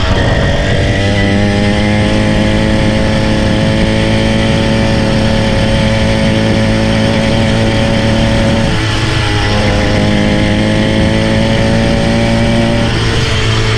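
Motorised bicycle kit engine running hard under a rider, its pitch creeping up as it speeds along, easing off briefly about nine seconds in and again near the end, with wind rushing over the microphone.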